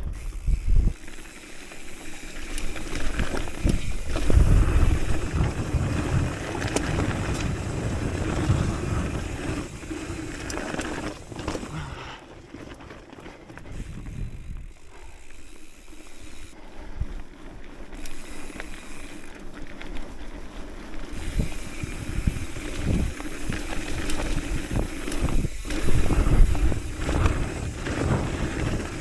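Haro Saguaro hardtail mountain bike rolling fast over a dirt trail: the tyres run on dirt and gravel, and the frame and chain rattle and knock over bumps. Wind buffets the microphone in gusts.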